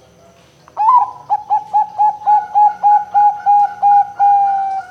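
Zebra dove (perkutut) cooing: after a short start-up note, a rapid run of about a dozen short, even coos about four a second, closing on one longer drawn-out note that sinks slightly in pitch.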